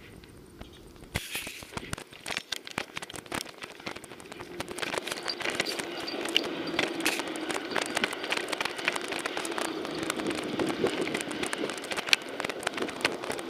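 Crackling, rubbing noise from a dog-worn camera as the dog moves about, starting abruptly about a second in and growing louder and denser from about four seconds in.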